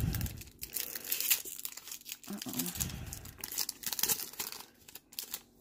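Trading card pack wrapper crinkling and tearing as it is pulled open by hand, an irregular run of crackles.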